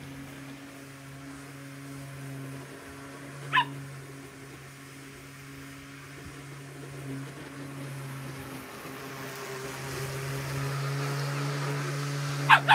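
Electric lawn mower running with a steady motor hum that grows louder as it comes closer near the end. A dog gives one sharp bark about a third of the way in and several quick barks right at the end.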